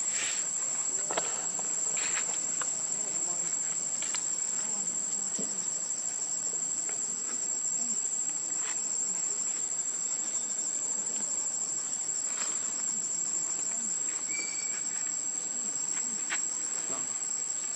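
Steady, high-pitched insect chorus shrilling without a break, with a few faint ticks over it.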